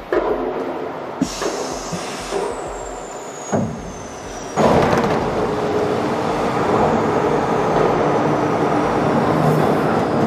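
Pipe-production machinery. A few sharp mechanical clicks and knocks come first, with a high thin tone slowly falling. Then about four and a half seconds in a loud, steady machine noise with a low hum starts suddenly and keeps running.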